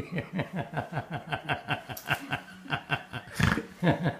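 A person laughing hard in a long run of quick 'ha' pulses, about six a second, with a short noisy burst about three and a half seconds in.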